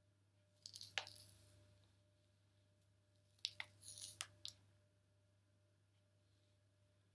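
Faint handling sounds in two short bursts: a few sharp clicks with a brief rustling hiss, as a paddle brush and a flat iron are drawn down a damp section of synthetic wig hair.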